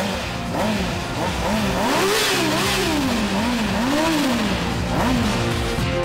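Motorcycle engine revved repeatedly, its pitch rising and falling about half a dozen times in quick succession, with music underneath.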